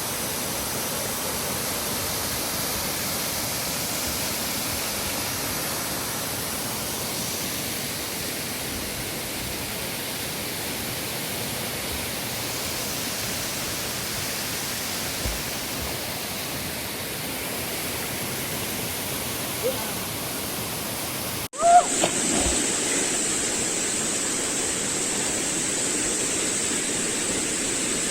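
Mountain valley stream rushing steadily over rocks. About two-thirds of the way through the sound cuts abruptly, with a brief knock, and the water goes on with a faint steady high tone above it.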